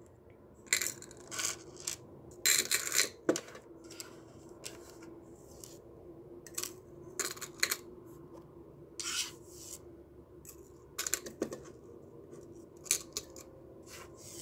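Small metal jewelry (fine chains, a charm bracelet, a ring and earrings) clinking and jingling in many short, separate bursts as the pieces are picked up and set into a small glass-and-metal jewelry box.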